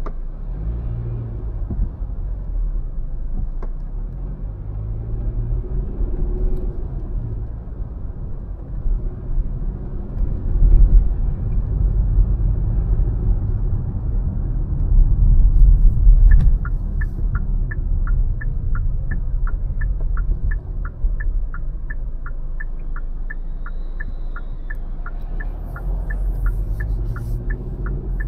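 Steady low rumble of a car's engine and tyres heard from inside the moving car. About two-thirds of the way through, a turn-signal indicator starts ticking evenly, about two to three ticks a second, as the car signals a turn.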